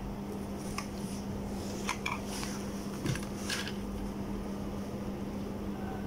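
Steady low electrical hum, with a few faint clicks and taps as the thermocouple probe is handled in a ceramic mug of water.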